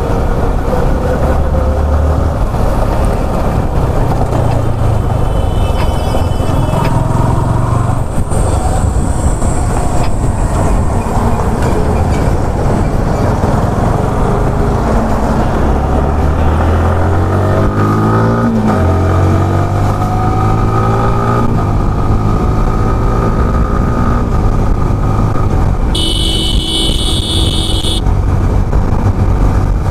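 Yamaha R15M's 155 cc single-cylinder engine running under way, heard from the rider's seat, its pitch rising and dropping with throttle and gear changes as the bike picks up to highway speed. A horn sounds for about two seconds near the end.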